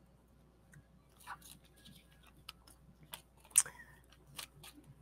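Paper and card stock being handled: soft rustles and small scattered clicks and taps, with one sharper click about three and a half seconds in.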